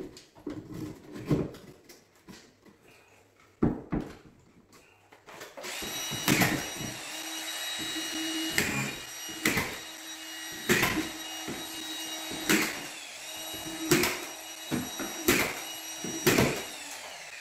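A few scattered knocks as the plasterboard strip is pressed into place, then a drywall screw gun running steadily, its motor pitch dipping with each screw it drives into the board, roughly once a second.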